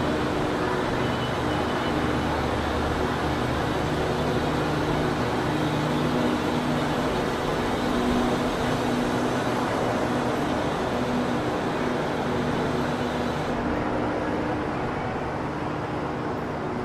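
City street traffic: vehicle engines running with a steady low hum over the noise of passing traffic. The higher hiss of the traffic drops away about three-quarters of the way through.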